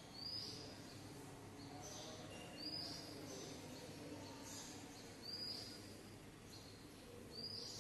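A bird chirping faintly: a short, high, rising chirp repeated about every two and a half seconds, four times, over a low steady room hum.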